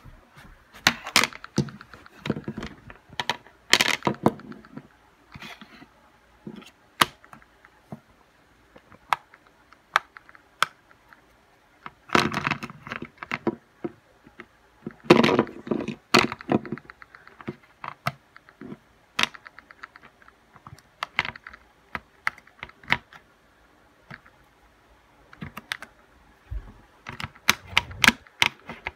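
Silicone pop-it fidget toy clicking and popping under a dog's paws: irregular sharp clicks, with quick flurries of many clicks now and then.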